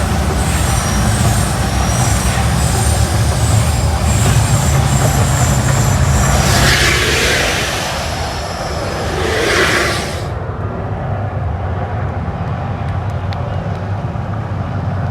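Deep, loud rumble of the volcano show's eruption effects, with two rushing surges in the middle. The higher part of the sound drops away suddenly about ten seconds in, leaving a lower rumble.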